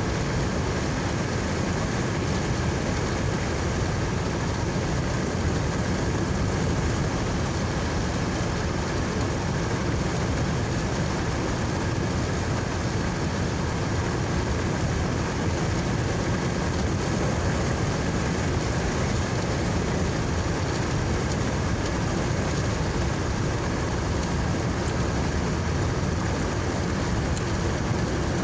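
Car engine and road noise heard inside the cabin, a steady, even rumble.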